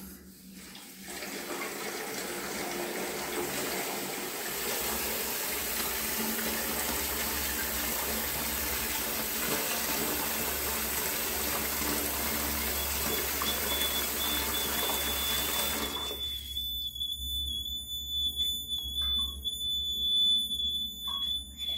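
Tap water pouring into a plastic bucket, filling it, until the flow stops abruptly about three quarters of the way through. Shortly before it stops, the water level indicator's battery buzzer starts a steady, high, continuous beep and keeps sounding: the water has reached the two wire ends and completed the circuit.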